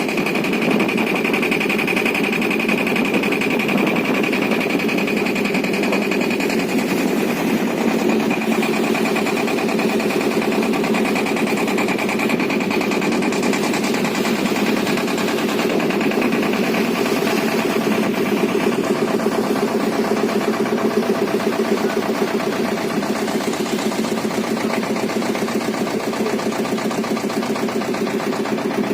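Small engine running steadily at a constant speed, with a fast, even rattling beat and a steady high whine over it.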